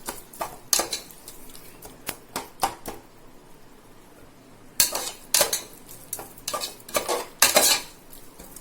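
A spoon stirring and scraping a thick masala of onion, tomato, ginger-garlic paste and curd in a cooking pan: a string of sharp scrapes and clinks against the pan, a quieter pause about halfway, then a run of louder, quicker strokes.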